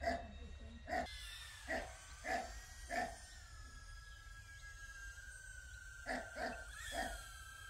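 A dog barking: five barks over about three seconds, then three more about six seconds in. A faint, steady high whine runs underneath.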